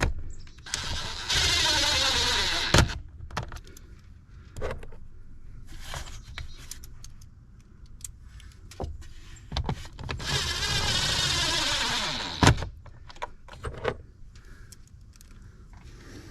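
Small cordless impact driver running in two bursts of about two seconds, near the start and about ten seconds in, each falling in pitch and ending with a sharp knock as it drives the 8 mm bolts of the air filter housing back in. Scattered clicks and knocks of tools and parts being handled come in between.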